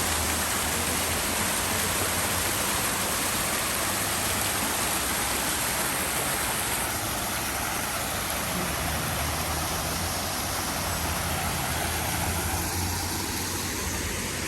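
Waterfall rushing with a steady, even wash of falling water, over a low rumble.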